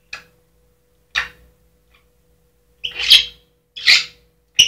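African grey parrot giving a series of five short, high-pitched calls, the loudest about three and four seconds in.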